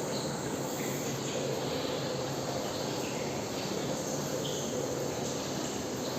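Steady mechanical running noise of a steam distillation plant: an even hiss with a low, constant hum that does not change.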